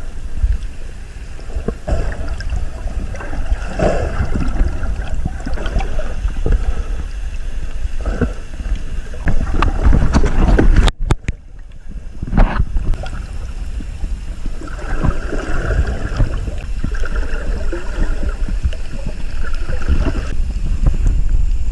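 Sea water sloshing and splashing with wind buffeting the microphone as a heavy low rumble; the sound cuts out briefly about eleven seconds in.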